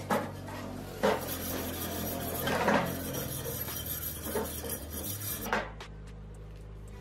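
Rusty steel parts of an old hand bicycle pump being worked apart by hand: a rough metal-on-metal scraping and rubbing that lasts about four seconds and is loudest midway, with a few sharp clinks and knocks near its start and end.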